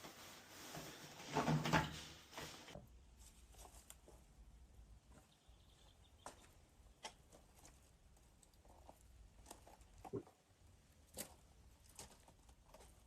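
Quiet handling sounds: a brief rustle and rattle about one and a half seconds in, then scattered small clicks and knocks as parts are handled.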